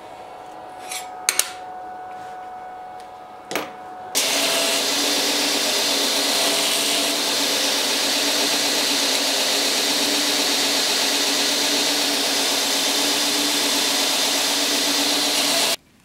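Belt grinder running, with a few sharp clicks in the first seconds; from about four seconds in a piece of sheet metal is ground on the belt, a loud steady hiss that cuts off suddenly near the end.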